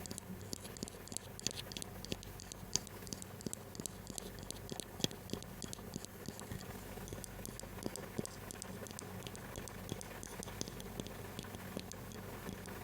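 ASMR tapping: fingertips and nails tapping and scratching lightly on an object close to the microphone, many small irregular clicks a second.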